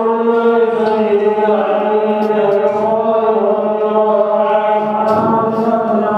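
A man chanting post-prayer dhikr into a microphone in long, drawn-out held notes, with a short break and a new phrase about five seconds in.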